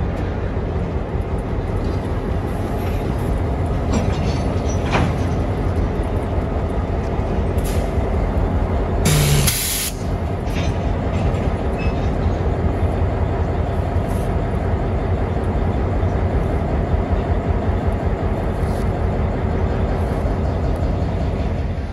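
Diesel freight locomotive running close by, a steady engine rumble with train noise. A loud hiss of about a second breaks in about nine seconds in.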